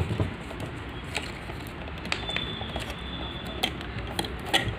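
Wire connectors being worked loose and pulled off a waffle maker's control board: a scatter of small sharp clicks and rattles over a steady background noise.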